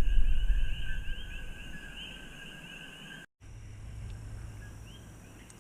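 A chorus of coqui frogs calling, many short rising chirps layered over one another. A low rumble sits under them at first and fades. The sound cuts out for an instant about three seconds in; after that the calls are fainter and fewer, over a steady high insect-like hum.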